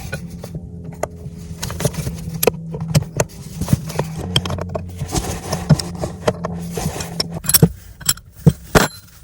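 Metal tools and hardware clinking and scraping during work on the chain-plate screws, with several sharp knocks near the end. A steady low hum runs underneath and stops about eight seconds in.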